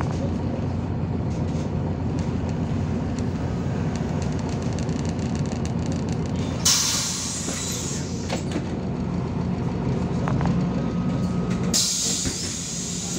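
A MAZ-203 city bus's engine runs steadily with cabin rumble. Twice, about seven and twelve seconds in, compressed air hisses out sharply from the bus's pneumatic system for a second or more each time.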